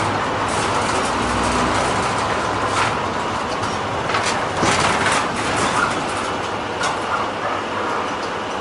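Steady running noise of a bus heard inside its cabin: engine and road noise, with a short knock or rattle now and then.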